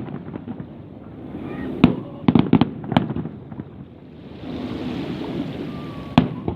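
Fireworks bursting overhead: a sharp bang about two seconds in, then a quick cluster of bangs, another bang a moment later, and a single bang near the end.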